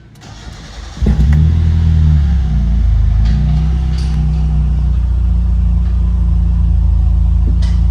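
Mitsubishi 4G93 MIVEC inline-four starting about a second in, on a base tune from a MegaSquirt MS3 ECU. It flares briefly, then settles into a steady idle.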